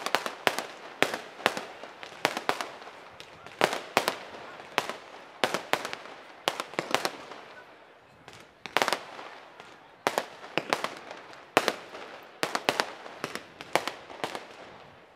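Fireworks display: aerial shells bursting in an irregular run of sharp bangs, about two a second, many in quick clusters, with a brief lull about eight seconds in.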